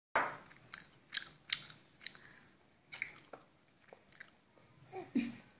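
A baby mouthing food off a spoon: a string of sharp, wet lip smacks and mouth clicks at irregular intervals, with a brief falling vocal sound near the end.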